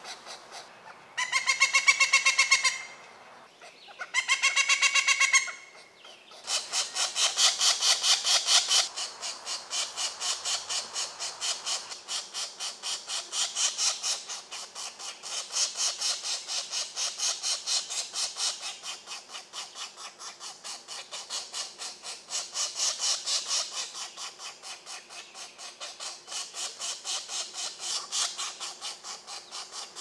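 Pileated woodpecker nestlings begging at the nest hole as an adult comes to feed them. There are two short bursts of rapid pitched calling, then from about six seconds in a continuous fast, harsh chattering that swells and fades.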